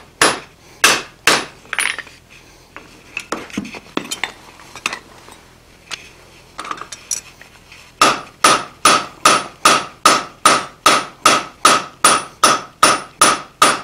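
Hand hammer striking red-hot steel on an anvil. A few blows come first, then a pause with lighter clinks of metal on metal. About eight seconds in a steady run of blows begins, about two and a half a second, each with a short metallic ring.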